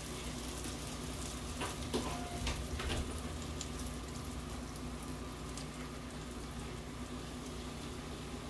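Dough dumplings frying in a pan of hot oil, a steady sizzle. A few light knocks come about two to three seconds in.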